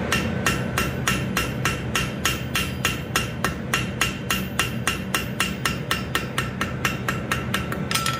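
Ball-peen hammer striking hot steel on an anvil in a steady rhythm, about four blows a second, each with a short metallic ring. The blows are spreading and widening the front flippers of a forged steel sea turtle held in tongs.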